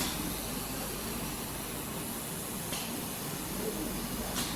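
Steady hiss from a laser welding machine at work, with a couple of faint clicks near the end.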